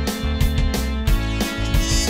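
Background music with a steady beat, about three beats a second.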